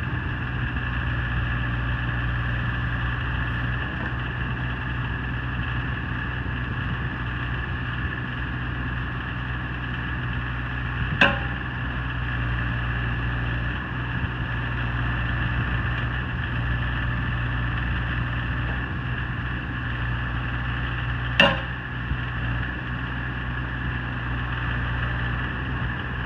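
2006 CAT 303CR mini excavator's diesel engine running steadily as its boom and stick move. Two sharp knocks, about ten seconds apart, stand out over it.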